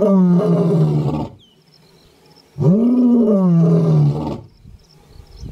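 Male lion roaring: long calls that rise and then fall in pitch, one ending about a second in and a second one lasting nearly two seconds in the middle, with short pauses between.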